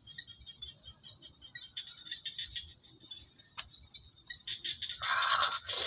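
Crickets chirping steadily in a continuous evening chorus. A single sharp click about three and a half seconds in, and near the end a loud breathy rush: a man exhaling after a swallow of beer.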